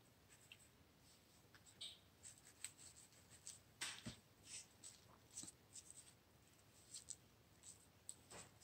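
Faint rustling and light ticks of paper pieces being handled and set down on a paper envelope, short and scattered, the loudest just under four seconds in.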